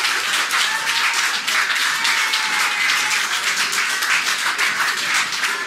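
A small audience clapping steadily, with a few voices faintly mixed in.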